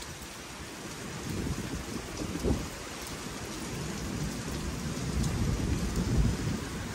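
Kalbaishakhi (nor'wester) storm: a steady hiss of rain and wind, with irregular low rumbling that swells about five to six seconds in.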